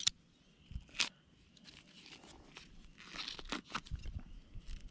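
Plastic packaging on a pack of brats being cut and torn open with a knife and multitool, the plastic crinkling, with two sharp clicks in the first second.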